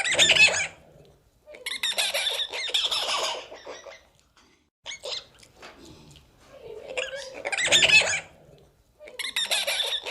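A young animal giving harsh, squawking calls: about five calls, each a second or two long, with short pauses between them.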